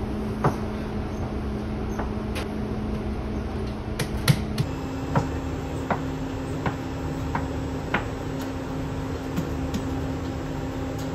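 Bakery kitchen work noise: a steady machine hum under a dozen or so scattered clicks and knocks, the loudest about four seconds in. The hum shifts slightly higher in pitch about four and a half seconds in.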